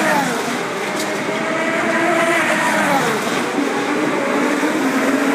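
IndyCar race cars going past one after another at speed, each engine's pitch dropping as the car passes and another car's note rising near the end.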